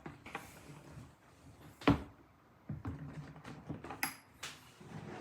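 Handling noise from an ammunition transport box and the items being moved around it: a single sharp knock about two seconds in, with lighter clicks and clunks and some rustling around it.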